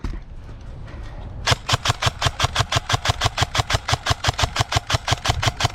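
Airsoft gun firing a long rapid string of shots, an even rattle of about seven sharp reports a second starting about a second and a half in.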